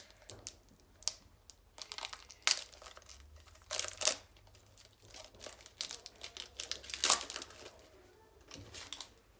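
Pokémon card booster pack wrapper being torn open and crinkled in the hands, a run of irregular sharp crackles, the loudest about two-thirds of the way through.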